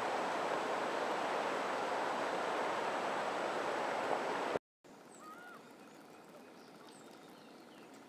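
Fast river water rushing over rocks, a steady, even noise. After a sudden cut about halfway through, it gives way to a much quieter stretch of calm river with a few faint bird chirps.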